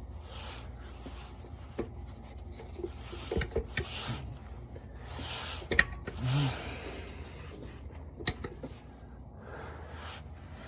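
Small metal clicks, taps and rubbing as transmission servo parts are handled and pushed into place by hand, with soft swishing between the clicks.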